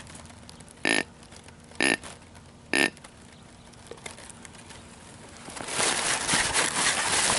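Deer grunt call blown three times: short, buzzy grunts about a second apart. Rustling and handling noise builds over the last two seconds.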